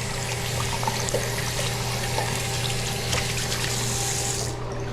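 Sink tap running as hands are rinsed under it, the water shut off suddenly about four and a half seconds in.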